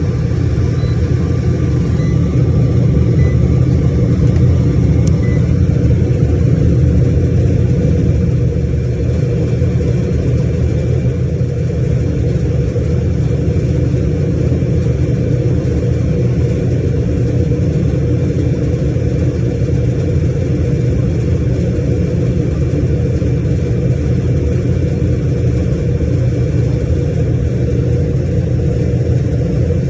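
Refrigeration condensing unit running with a steady low hum, fitted with new starting components. The technician judges its compressor bad.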